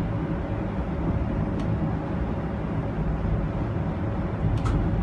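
Steady low rumble inside a Bombardier Flexity streetcar riding along the track, with two faint clicks, one about a second and a half in and one near the end.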